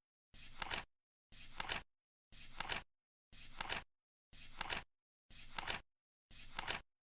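Flip clock counting down, its number cards flipping once a second: each flip is a short flutter that ends in a sharper, louder snap, seven times in a row with silence between.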